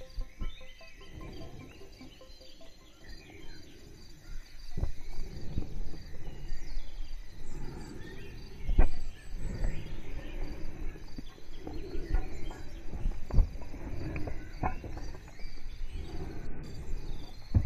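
Horse hoofbeats on a soft sand track, irregular dull thuds with an occasional sharper knock, over a low rumble of wind and movement noise that grows louder after the first few seconds. Birds chirp faintly.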